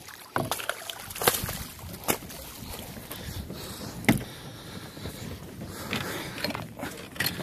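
A kayak moving through choppy sea water, with water splashing and sloshing against the hull and a few sharp knocks spread through it.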